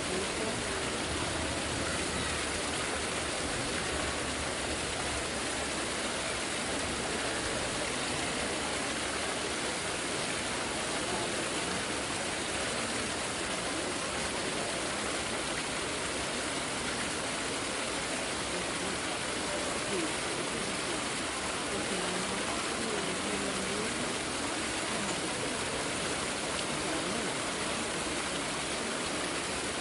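Steady crowd ambience: a constant hiss of distant murmuring voices with no single voice standing out.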